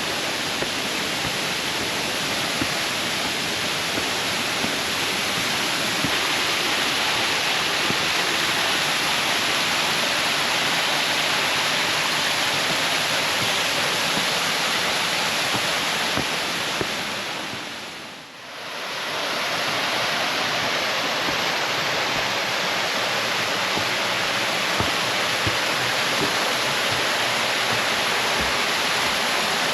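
Steady rush of a waterfall, with a brief fade down and back up a little past halfway.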